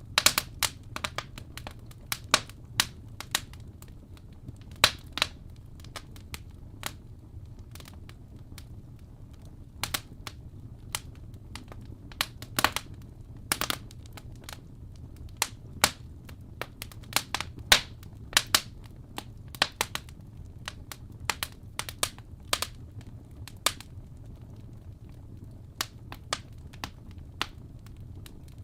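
Wood fire crackling: irregular sharp pops and snaps, some louder than others, over a steady low rumble.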